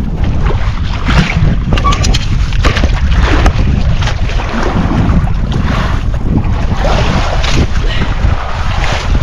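Wind buffeting the microphone over the wash of open sea beside an outrigger fishing boat, with splashes and a few knocks as a fish on a longline is pulled from the water and hauled aboard.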